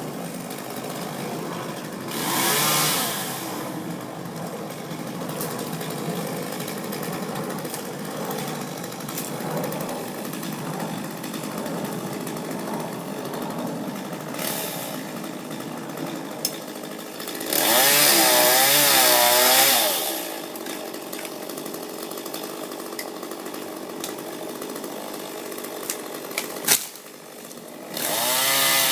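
Gas chainsaw running steadily near idle. It is revved briefly about two seconds in and opened up to full throttle for about two seconds a little past the middle, with its pitch wavering under load. Near the end it drops off, then revs up again.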